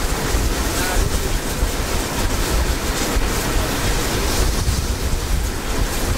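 Steady wind rush and low buffeting on the microphone at the front of the moving steam locomotive 23 023, a DB class 23, with the rumble of the running train underneath.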